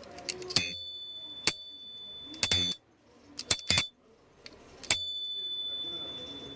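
The built-in alarm bell of an old early-20th-century lock ringing as the lock is worked. It rings out about half a second in and again about five seconds in, each time a bright strike that slowly dies away. Between the rings come sharp metallic clicks and a short rattle from the lock mechanism.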